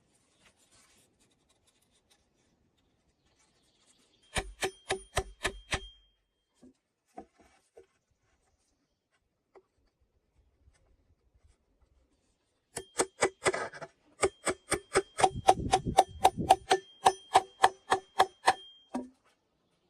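Rapid blows driving nails into wood, about five strikes a second, each with a metallic ring. There is a short run of blows, a pause, then a longer run lasting about six seconds.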